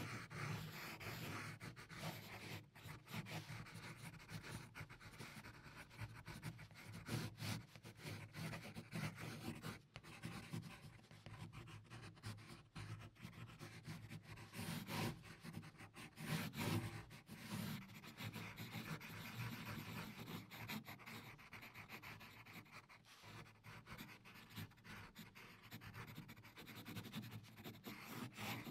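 Graphite pencil drawing on paper: an irregular run of scratching, rubbing strokes, some short and quick, some longer shading strokes, with brief pauses between them.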